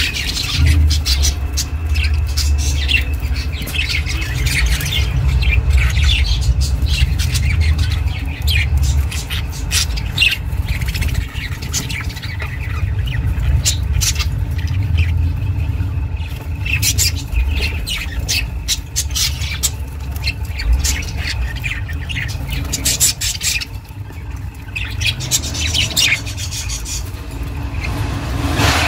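Budgies (budgerigars) chirping and chattering, a constant stream of short squawks and chirps, over a steady low hum.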